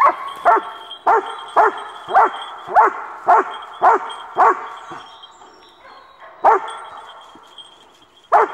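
Search dog barking steadily at the person it has found, about two barks a second for four or five seconds, then two more single barks after a pause: a bark alert on the found person.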